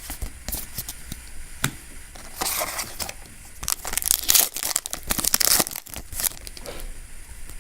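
Foil Yu-Gi-Oh! booster pack being torn open and its wrapper crinkled, in several short rustling tears with small clicks of card handling between them.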